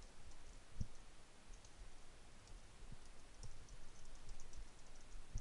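Faint, irregular clicks of computer keyboard keys pressed a few at a time while a line of text is edited.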